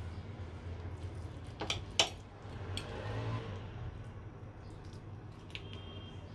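A metal fork clicking twice against the serving platter and then lifting a bite of soft, sauce-soaked bread and meatball, with a few lighter clinks, over a steady low hum.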